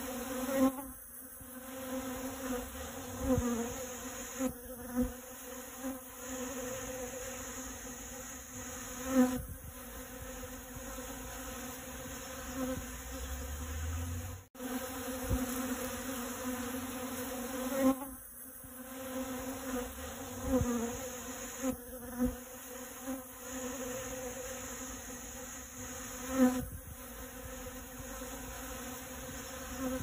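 Many honey bees buzzing steadily in close-up as they swarm over a dragon fruit flower, a low even hum with a few brief knocks and a momentary break about halfway through.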